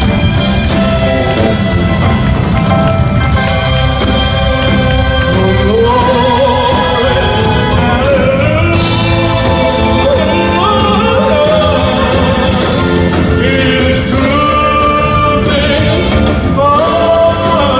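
Live band music with singing over it, loud and unbroken.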